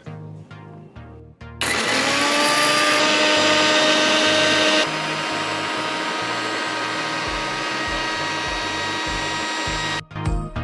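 Borosil Fortuner mixer grinder's 1000 W motor spins up about a second and a half in, its whine rising in pitch, and dry-grinds cumin and carom seeds to powder in the small stainless steel jar. It runs loud and steady, drops a step quieter a few seconds later, and cuts off near the end. Background music with a steady beat plays underneath.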